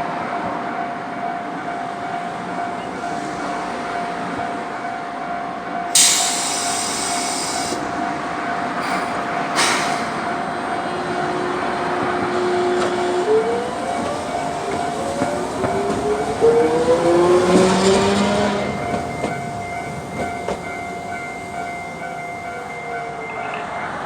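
A level-crossing warning bell rings on steadily, with a loud sharp burst about six seconds in and a shorter one a few seconds later. Then a Hiroden 3950-series tram's electric motor starts to whine, and the whine rises in pitch in several steps as the tram pulls away across the crossing.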